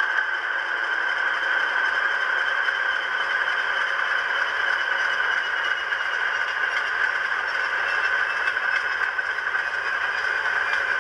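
Sound-fitted OO gauge model diesel locomotive idling: a steady diesel engine idle from the model's own small speaker, thin, with little bass.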